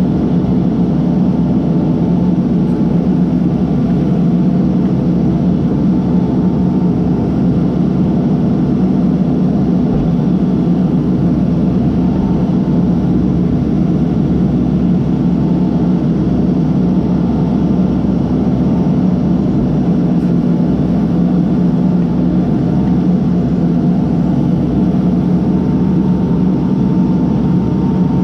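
Case backhoe's diesel engine running steadily at an even speed.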